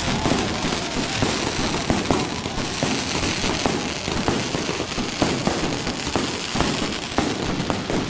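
Fireworks going off all at once, out of control: a dense, continuous barrage of bangs and crackling with many sharp reports a second.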